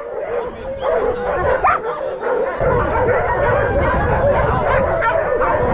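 A pack of harnessed sled-sport dogs barking, yipping and whining all at once, excited before a race start. A low rumble joins about two and a half seconds in.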